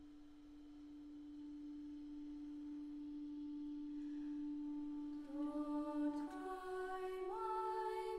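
Woodwind quintet playing: one long, soft held note swells slowly, then about five seconds in the other instruments enter with higher held notes that step upward into a chord.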